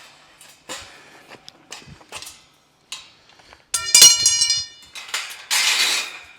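Metal wire fence panels of a dog pen clinking and knocking as they are joined. A loud ringing metal clang comes about four seconds in, followed by a scraping rattle.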